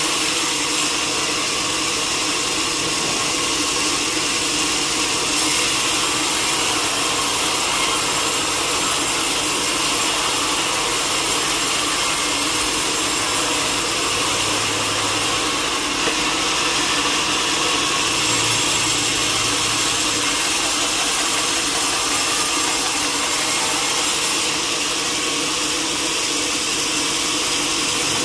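Sawmill saw running steadily through timber, a continuous noisy drone with steady tones and strong high hiss, the top end shifting a little every few seconds.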